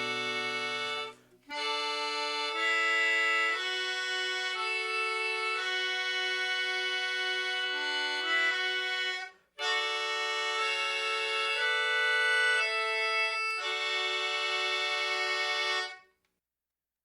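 Background music: a solo accordion-like reed instrument playing a slow melody over held chords, in three phrases separated by brief pauses, ending about a second before the end.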